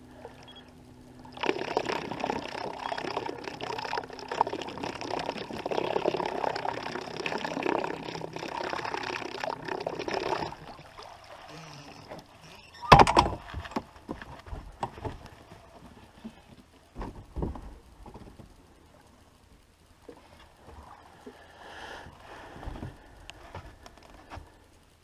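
Small fishing boat moving through the water, with water rushing and splashing against the hull over a steady hum for several seconds. Then comes a single loud knock about halfway through, and after it scattered lighter knocks and clatter.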